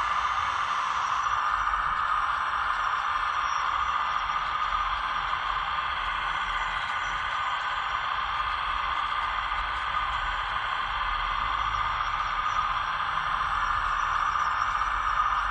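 Hydraulic pump of a scale RC excavator running as a steady whirring hiss, even in level throughout.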